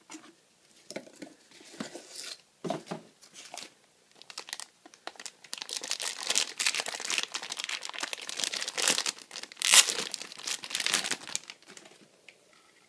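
Thin clear plastic bag crinkling and tearing as hands unwrap a hard plastic toy part from it; the crackling is sparse at first, then denser and louder from about halfway, with one sharp crackle near the end before it dies away.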